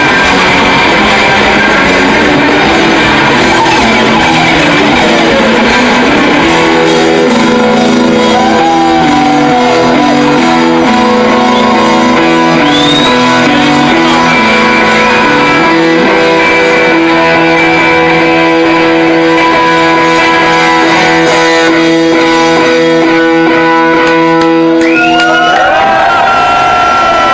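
A live band of three electric guitars and a drum kit playing loud, noisy rock, with held and sliding guitar notes; the playing changes near the end.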